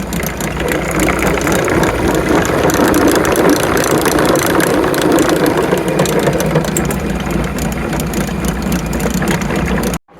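A machine running steadily, with a low engine-like hum under a continuous rattle of small clicks.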